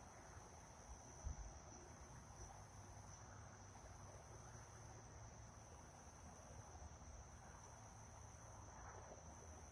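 Faint, steady chorus of night insects: a continuous high trill that does not change, with a soft low bump just over a second in.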